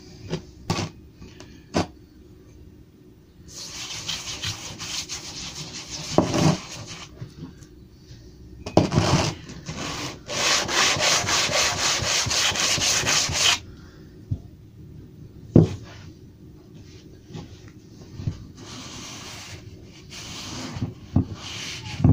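Planer blade held in a wooden holder rubbed back and forth on coarse abrasive paper, about 80 grit, laid flat: a scraping rasp in spells, loudest in a run of quick, even strokes in the middle. A few sharp knocks fall between the spells. This is the hand sharpening of the blade, grinding out the notches on coarse grit.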